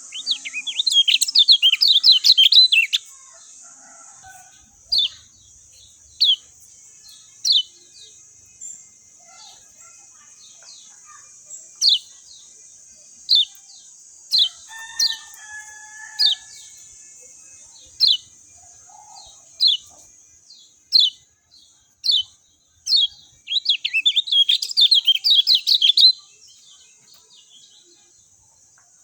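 Kecial kuning (lemon-bellied white-eye) singing: a quick run of high, bright chirps, then single sharp chirps every second or two, and another quick run near the end. A steady high hiss runs underneath and stops shortly before the end.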